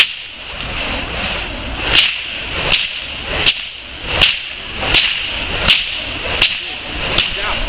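Burning fire whip cracking: one sharp crack at the start, then after a pause a regular run of about eight cracks, roughly one every three-quarters of a second, over a steady hiss.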